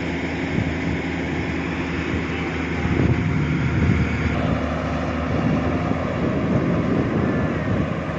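Excavator's diesel engine running steadily, its hum growing louder and rougher about three seconds in as the machine works.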